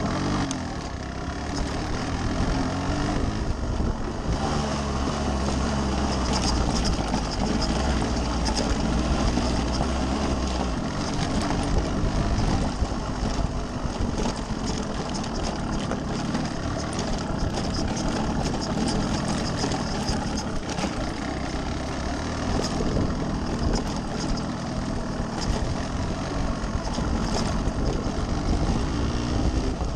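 Yamaha RX135's single-cylinder two-stroke engine running as the bike is ridden off-road, its pitch rising and falling with the throttle. Short knocks and rattles from the bike come in over the bumps.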